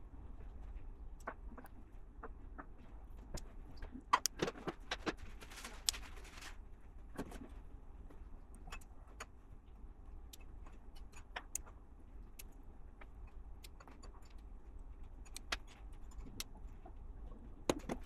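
Plastic LEGO pieces clicking and rattling as they are handled and snapped together: scattered small clicks, with a cluster of louder clicks and a short rustle about four to six seconds in.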